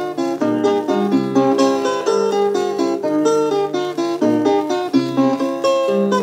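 Instrumental passage of a song: acoustic guitar picking a quick, even run of plucked notes over low bass notes.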